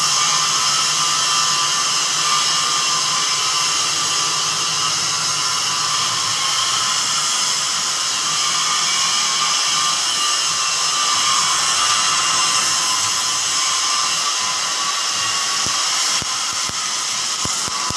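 Kaiyuan submerged-arc welding machine running while welding a steel girder: a steady hiss and whine, with a low hum under it that fades out about seven seconds in. The sound drops a little near the end, where a few sharp clicks are heard.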